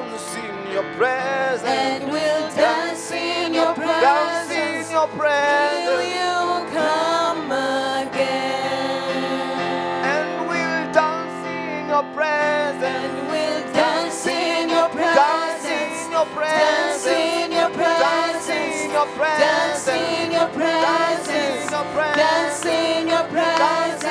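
Live gospel praise song: singers with instrumental backing.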